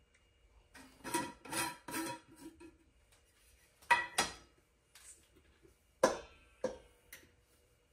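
Large glass jar of flour and stainless steel mixing bowl clinking and knocking: a run of light clinks and rattles about a second in, then sharp knocks with a short ring near four and six seconds in as the jar is tipped over the bowl to pour flour.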